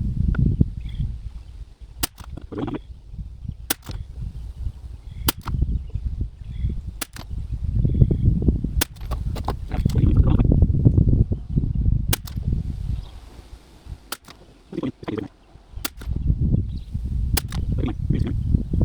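A .22LR rimfire target rifle (Anschutz 1761) firing a run of single shots, a sharp crack about every one and a half to two seconds, over gusting wind rumbling on the microphone.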